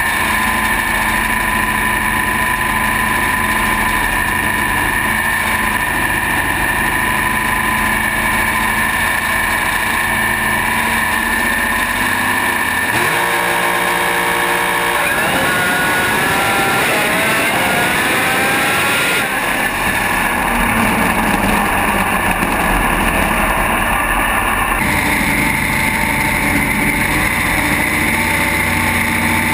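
Sand drag Jeep's racing engine running loud and steady, picked up by an onboard camera; about halfway through it revs, rising in pitch for a few seconds, before settling back.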